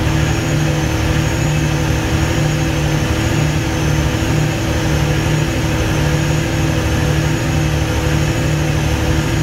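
500 kVA genset's engine running and hunting, its speed swinging back and forth between about 1477 and 1538 rpm, heard as a regular pulsing in its low note. The hunting follows the genset's load swinging between 98 and 170 kW.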